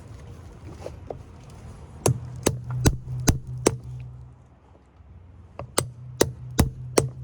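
Two runs of sharp hammer blows, about two and a half a second: five, a short pause, then four more, with a low ringing hum under each run.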